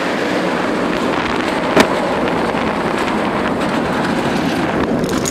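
Kumba, a steel roller coaster, with its train running along the track, heard from a seat on board as a steady loud rumble and rush. There is a sharp clank about two seconds in, and a few lighter clicks after it.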